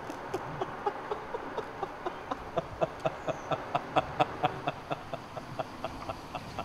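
A man laughing: a long run of short rhythmic "ha" pulses, about four a second, building to the loudest around four seconds in and then tailing off.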